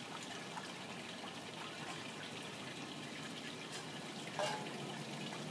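Great Dane puppy lapping water from a stainless steel bowl: a soft, irregular wet splashing.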